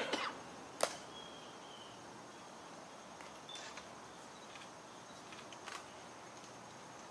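Quiet open-air ambience of a large crowd standing silent, broken by a sharp click about a second in and a few fainter clicks later, with a brief faint high chirp just after the first click.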